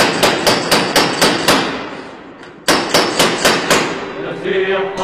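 An iron ring door knocker banging against a heavy wooden door, about four knocks a second, in two quick runs with a pause of about a second between. Chanting voices begin near the end.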